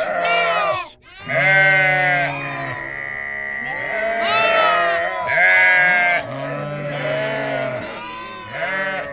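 Several goats bleating, their calls overlapping one another, with a short break about a second in.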